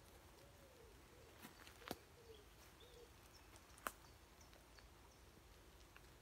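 Quiet woodland ambience: a pigeon cooing faintly in a few low notes over the first three seconds, with a few sharp clicks, the loudest about two and four seconds in, and faint high bird chirps.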